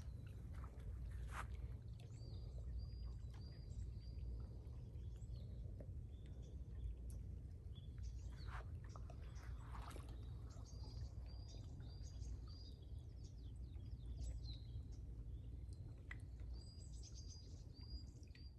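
Faint outdoor ambience: small birds chirping in short repeated calls over a low, steady rumble.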